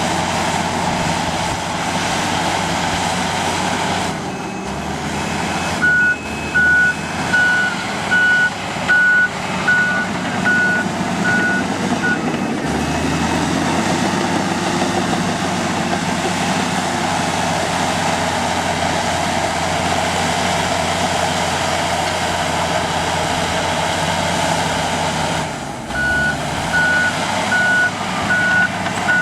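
Komatsu D85 bulldozer's diesel engine running steadily under work, with its reversing alarm beeping about twice a second while it backs up, once around the middle of the first half and again near the end.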